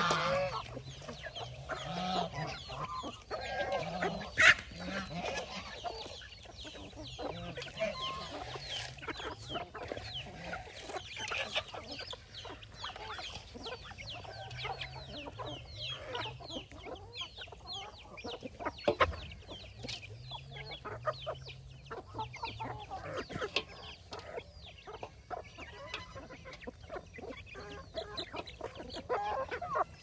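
A flock of free-range chickens clucking while feeding, with many quick pecking taps and scattered calls; one louder, sharper call stands out about four seconds in.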